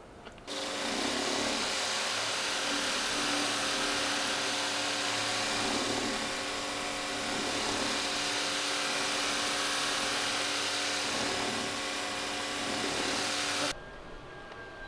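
Kärcher pressure washer running with its chassis-cleaner attachment spraying water jets up at a car's underbody: a steady hiss of spray over the machine's hum. It starts suddenly about half a second in and cuts off suddenly near the end.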